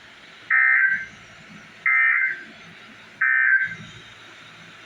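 Emergency Alert System end-of-message signal: three short bursts of SAME digital data tones, each a harsh screech about half a second long, repeated at even spacing a little over a second apart. A faint hiss lies between the bursts.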